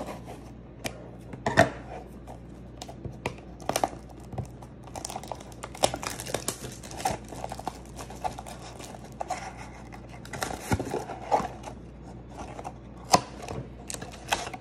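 Scissors snipping the thin plastic shrink-wrap on a small cardboard trading-card box, then the wrap crinkling as it is pulled off and the box's cardboard flap opened. It comes as a string of sharp clicks and crackles, busiest in the middle.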